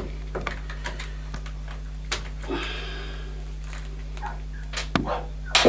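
Hard plastic clicks and knocks as the plastic mount for a gas boiler's potentiometer and thermostat is worked loose by hand, with a short scraping hiss near the middle and two sharp clicks near the end, over a steady low hum.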